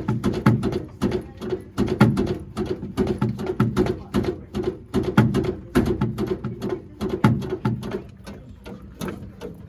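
Brake pedal of a 1965 Cushman Truckster being pumped to prime its dry brake system, giving a run of irregular mechanical knocks and squeaks about two to three a second over a steady low hum.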